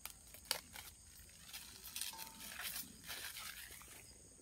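Faint rustling and crinkling of plastic packaging film as the parts of a stainless-steel brazier are unwrapped, with a few light clicks of the metal parts being handled.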